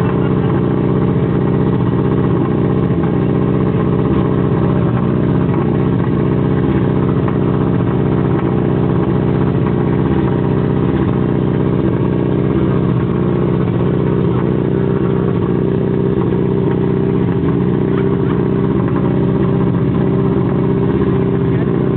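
Subaru Impreza WRC rally car's turbocharged flat-four boxer engine idling steadily while warming up.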